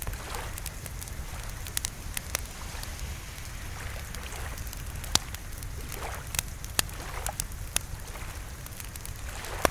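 Wood fire crackling, with irregular sharp pops over a steady low rumble and a soft hiss of rain.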